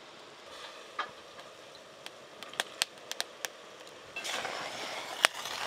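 Sugar syrup simmering in an aluminium karai over a wood fire: a faint hiss with scattered sharp ticks, the hiss growing louder about four seconds in.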